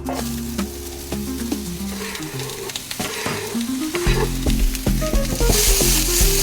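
Diced onions sizzling in hot oil in a frying pan, with a utensil stirring and tapping them about. The sizzle swells louder about five seconds in. Background music with a bass line plays throughout.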